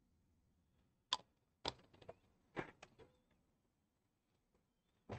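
A few small, sharp clicks and taps against near silence, about five in all, as a small plastic bottle of decal-setting solution and a brush are put down on the workbench; the sharpest tap comes near the end.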